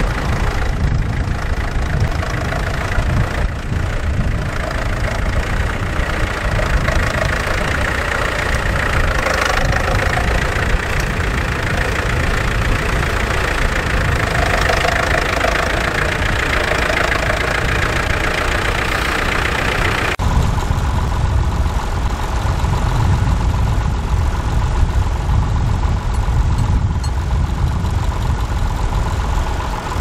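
Vintage tractor engine running steadily under load while pulling a plough. About two-thirds of the way through, the sound switches abruptly to another tractor's engine.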